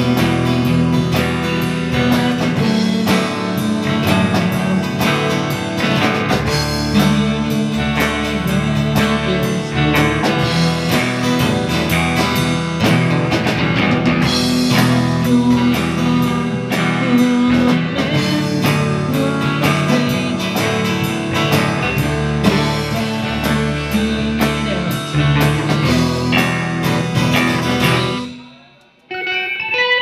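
Live rock band playing: electric and acoustic guitars, bass guitar and drum kit together. Near the end the band stops abruptly for about a second, then the music comes back in more sparsely, led by guitar.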